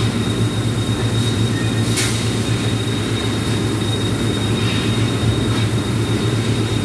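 Steady low electrical machine hum with a thin, steady high whine above it and a few light clicks, the strongest about two seconds in.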